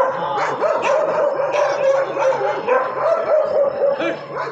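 Several dogs barking and yelping at once, with overlapping calls that rise and fall continuously.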